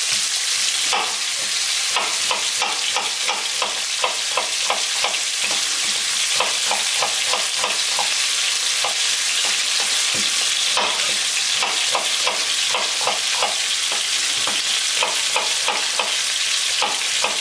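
Ground beef and onions sizzling steadily in hot oil in a pan, with a knife cutting onions on a wooden cutting board: runs of sharp taps, about three a second, with short pauses between runs.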